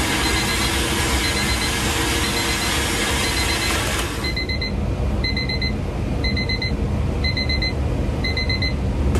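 Countertop blender running on a jar of sauce, switched off abruptly about four seconds in. An electronic kitchen timer beeps in short repeated bursts, about one burst a second, throughout and plainer once the blender stops.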